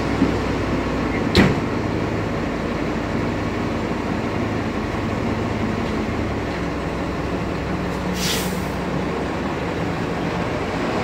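Fire apparatus diesel engine running steadily in the station bay. There is a sharp clunk about a second in and a short hiss of air about eight seconds in.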